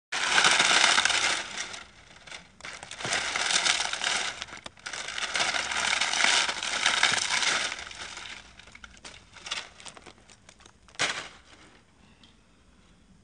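Gritty crunching and scraping in two long stretches, then a few scattered clicks and one short crunch near the end.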